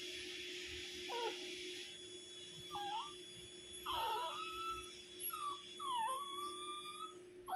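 Dachshund puppy giving a series of high, wavering whining howls, about five, the longest one drawn out near the end.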